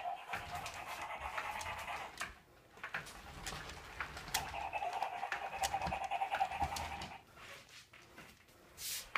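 FurReal GoGo walking toy puppy playing its electronic panting sound through its small speaker, in two long stretches with a short break about two seconds in, then dropping away about seven seconds in, with light clicks throughout.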